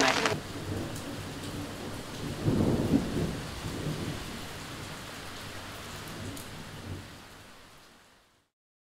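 Steady rain with a low rumble of thunder swelling about two and a half seconds in; the whole fades out near the end.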